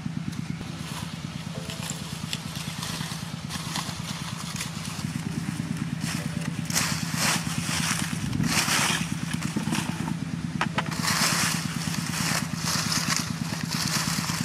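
A small engine runs steadily with a low, even pulse throughout. Over it come bursts of crackling rustle from dry water hyacinth stalks and leaves being trampled and pushed aside, louder in the second half.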